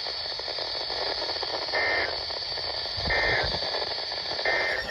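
EAS end-of-message data bursts on a NOAA Weather Radio broadcast: three short identical digital squawks, about 1.3 seconds apart, over steady radio static. They mark the close of the severe thunderstorm warning.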